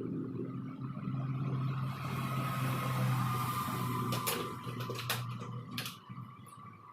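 Electric arc welding: a steady low hum with a hiss over it for about five seconds, stopping near the end, followed by a few sharp clicks.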